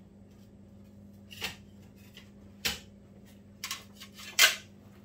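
Four short handling sounds, knocks and rustles of objects being moved on a work surface, the loudest near the end, over a faint steady hum.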